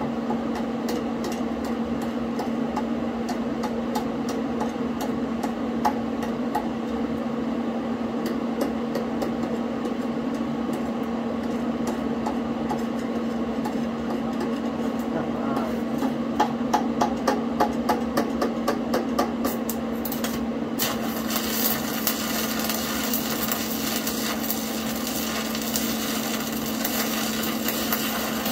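Stick welder in use: a steady hum with scattered clicks and taps, then about three-quarters of the way through the electrode arc strikes and burns with a steady crackling hiss.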